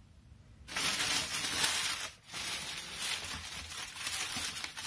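Wrapping being crumpled and torn off an item by hand: dense crinkling and tearing that starts under a second in, breaks off briefly just after two seconds, then carries on.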